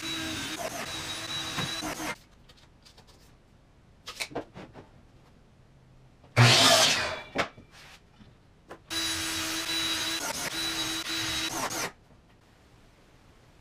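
Woodshop power tools in short edited bursts: a small handheld power tool runs steadily for about two seconds and cuts off, a few knocks follow, then an orange Ridgid miter saw makes one loud cut of about a second, and the handheld tool runs steadily again for about three seconds before cutting off abruptly.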